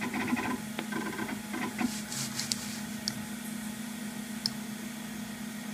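Steady hum of a running Macintosh SE, with a few light mouse clicks in the first two seconds as windows and menus are opened and closed.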